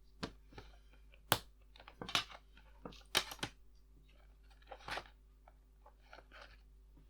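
Lego packaging and parts being handled: an irregular run of sharp plastic clicks and short crinkly rustles.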